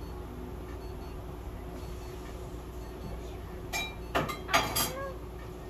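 A steady electrical hum, then a quick cluster of about four short, sharp hissing bursts a little under four seconds in, followed by a brief animal cry near the end.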